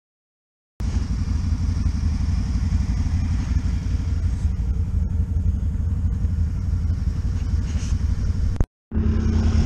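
Silence for the first second, then a Can-Am ATV engine running steadily close to the microphone, cut off briefly near the end before running again.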